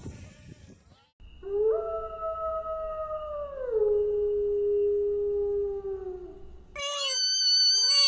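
An animal's long, drawn-out howling call, held steady for about five seconds and dropping to a lower pitch partway through. Near the end a different, higher-pitched animal call starts, with short notes that fall in pitch.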